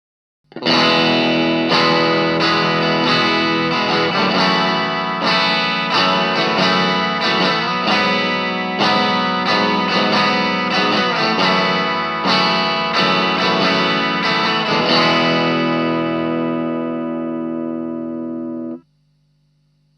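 Electric guitar, a Fender Stratocaster played through an Ibanez Tube Screamer Mini overdrive pedal into a Marshall MG15 amp, with overdriven chords struck about once a second. A final chord rings out and is cut off suddenly near the end, leaving a faint amp hum.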